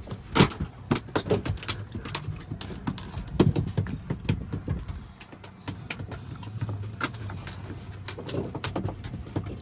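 A run of irregular knocks and clicks on a boat, two of them louder, about half a second and three and a half seconds in, over a low steady rumble.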